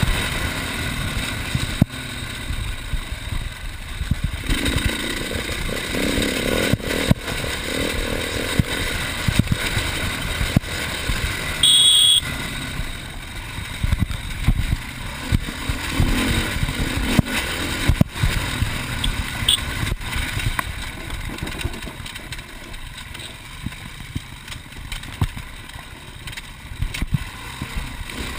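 Enduro motorcycle engine running hard and rising and falling with the throttle while the bike rattles and knocks over a rough dirt track.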